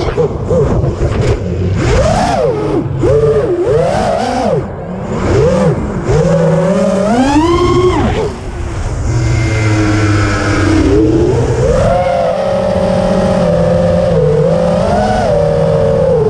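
FPV drone's motors and propellers whining, the pitch swooping up and down every second or so with the throttle, then holding steadier in the second half, over rushing wind noise. Heard from the drone's onboard camera.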